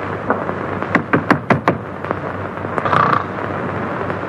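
Knuckles rapping on a wooden door: a quick run of about five knocks, about a second in, over the steady hiss of an old film soundtrack.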